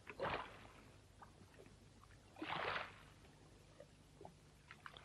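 Faint sea waves washing, two soft swells of surf a couple of seconds apart, with a few small ticks over a low hum.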